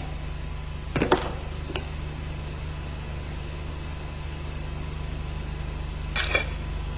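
Short metallic knocks of parts or tools against an MZ engine's aluminium crankcase, one with a lighter tap about a second in and a brief clatter near the end, over a steady low hum.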